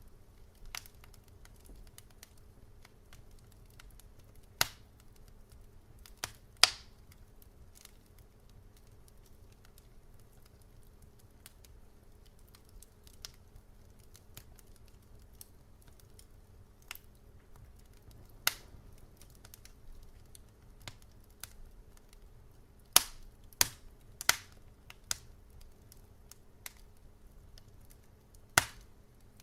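Wood fire crackling: scattered sharp pops and snaps, most of them faint, with a few louder ones, including three close together about twenty-three to twenty-five seconds in. A faint steady low hum lies underneath.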